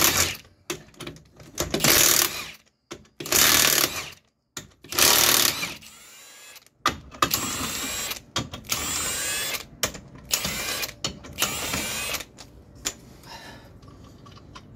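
Cordless impact wrench hammering the wheel's lug nuts loose, in about eight short bursts, each winding down as the trigger is released.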